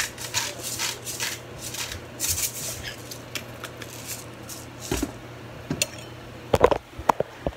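Hand-twisted salt grinder grinding: a quick run of short rasping strokes. Near the end come a few louder knocks and bumps of handling.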